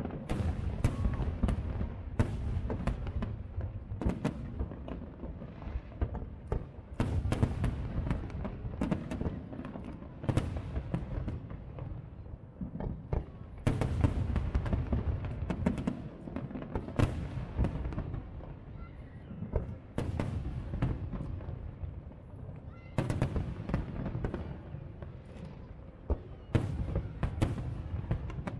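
Aerial fireworks display: many sharp bangs and booms in quick succession over a continuous low rumble, coming in louder clusters every few seconds.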